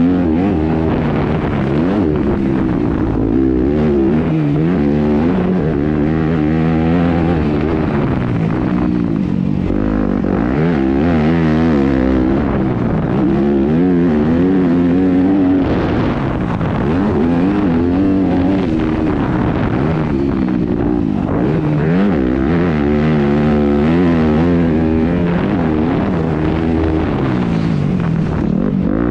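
2019 Yamaha 250F's four-stroke single-cylinder engine, its pitch climbing and dropping over and over as the throttle is opened and shut through the lap.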